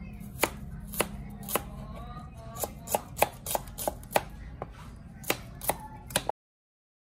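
A kitchen knife slicing shallots on a cutting board, with a sharp tap each time the blade strikes the board, about two or three a second at an uneven pace. The sound cuts off suddenly about six seconds in.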